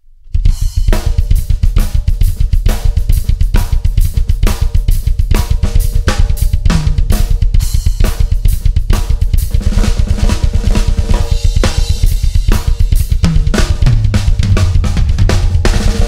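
Drum kit played: the two bass drum pedals keep up a fast, continuous Swiss Army triplet pattern, while the hands jam over it on cymbals and snare. It starts just after the beginning.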